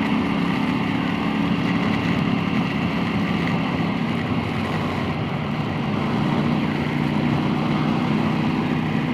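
KTM 890 Duke R's parallel-twin engine running steadily while riding, its note dropping a little about halfway through and picking up again, with wind noise over it.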